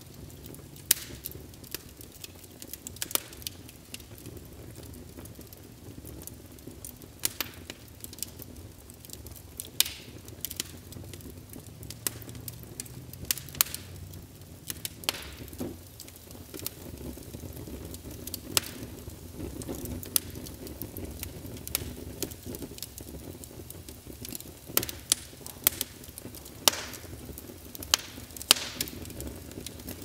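Wood fire crackling: a steady low rumble with irregular sharp pops and snaps every second or two.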